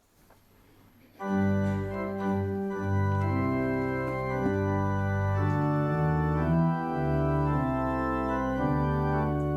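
Organ begins playing the opening of a hymn about a second in, held chords moving from one to the next at a slow, steady pace.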